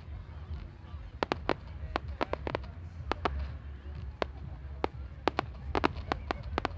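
Low-noise display fireworks going off as scattered sharp pops and crackles at irregular intervals, about a dozen in the space of a few seconds.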